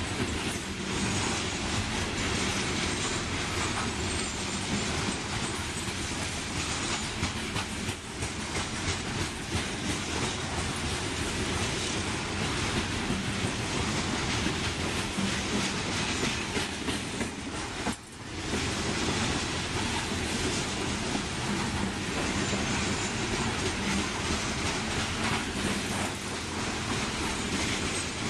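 Open-top coal hopper cars of a slow freight train rolling past on steel rails: a steady rumble and rattle of wheels and car bodies, with a brief lull about two-thirds of the way through.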